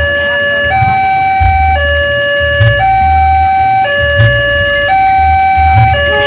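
Electronic two-tone warning alarm of a railway level crossing, sounding loud and steady and switching between a low and a high tone about once a second.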